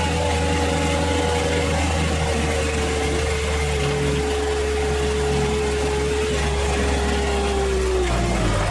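Heavy truck engine running with a steady low drone and a whine that slowly falls in pitch, then dips and picks up again near the end.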